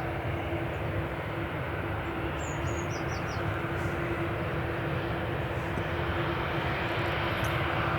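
Jet airliner engines running at a distance: a steady rushing noise with a steady hum underneath, slowly growing louder towards the end.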